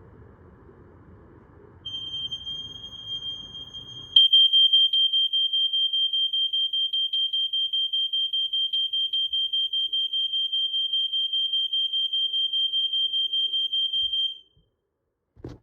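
Smoke alarm going off during a test: one high-pitched steady tone starts about two seconds in, gets much louder about four seconds in, and cuts off about a second before the end.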